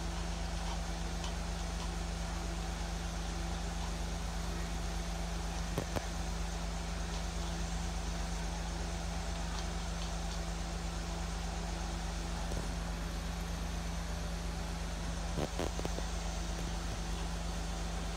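A steady low mechanical hum, with a short click about six seconds in and a couple more around fifteen seconds.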